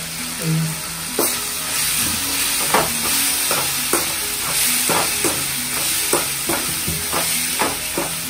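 Chopped vegetables sizzling in hot oil in a wok while a steel ladle stirs them, scraping and clinking against the pan about two or three times a second.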